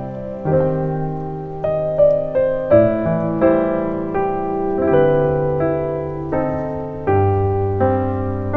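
Background piano music: a calm piece with notes and chords struck about every half second to second, each one ringing and fading.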